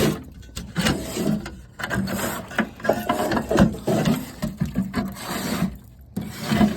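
Irregular rubbing, scraping and knocking as a hand-made sheet-metal patch panel is pushed into place against the car's body to test its fit.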